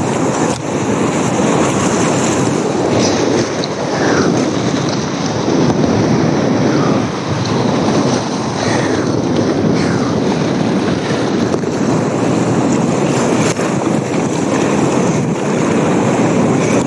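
Loud, steady rush of whitewater churning through a big-water river rapid, heard from a kayak in the middle of it, with the splashes of paddle strokes.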